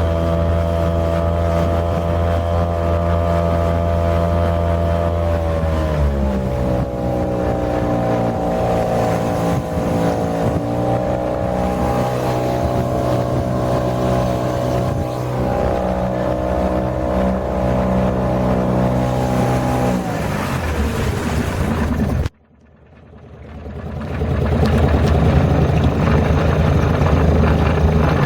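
3.5 hp Nissan outboard motor running steadily under way, its pitch stepping down twice as the throttle is eased back. About 22 seconds in the sound cuts out abruptly, then swells back over a couple of seconds as a rougher, noisier drone.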